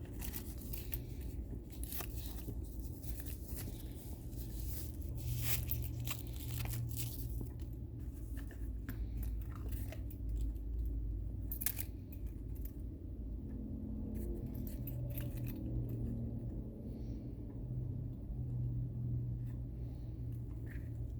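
Paper packaging being handled during an unboxing: rustling and tearing with sharp clicks, thickest in the first half and sparser later, over a steady low hum.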